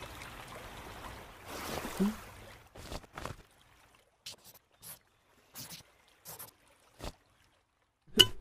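Sea water washing gently for the first couple of seconds, then a run of short scratchy strokes of a charred stick writing on paper, and a sharp knock near the end.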